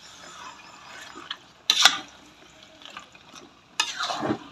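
Metal spatula stirring and turning spice-coated chicken pieces in a steel wok: wet squelching of the thick paste with scrapes of the spatula against the pan, two louder scrapes a little under 2 s in and near the end.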